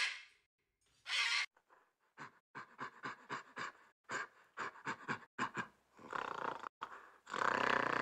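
A blue-and-yellow macaw gives two harsh squawks in the first second and a half. Then a gorilla makes a quick run of short panting grunts, about four or five a second, and ends with a longer, louder roar-like call near the end.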